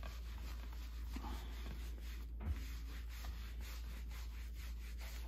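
Applicator pad rubbing thick wax polish into a wooden case lid by hand: a faint, steady rubbing with a soft tick about halfway through, over a low steady hum.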